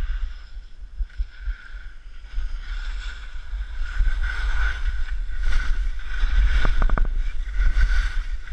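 Wind noise on the microphone of a head-mounted camera while skiing downhill, with the skis hissing over snow, getting louder about halfway through as speed builds. A quick run of clicks near the end.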